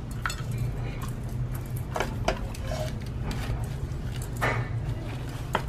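Rock salt being sprinkled and rubbed onto short mackerel in a stainless steel bowl: light scratching and a few sharp clicks of grains and fingers against the fish and the metal, two about two seconds in and one more near the end, over a steady low hum.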